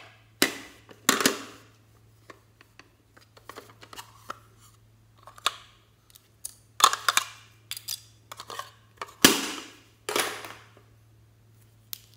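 Hands handling small plastic makeup items and containers over a glass dish: irregular clicks, taps and short clattering rustles, the loudest about half a second in, around one second, near seven seconds and around nine to ten seconds. A faint steady low hum runs underneath.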